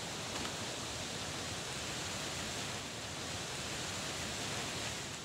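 Steady, even rushing noise with no distinct events, cutting off abruptly at the end.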